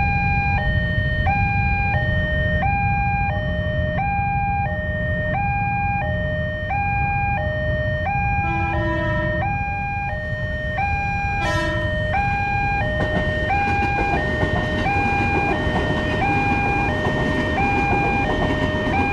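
Railway level-crossing warning alarm sounding a steady two-tone electronic signal, alternating high and low tones about three times a second, over a low rumble: the crossing is closed for an oncoming train. From about two-thirds of the way in, the rumble of a KRL electric commuter train grows under the alarm as the train approaches and passes.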